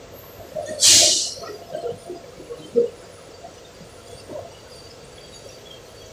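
Work sounds: a brief loud hissing rush about a second in, a sharp knock near three seconds, and scattered small knocks and thuds.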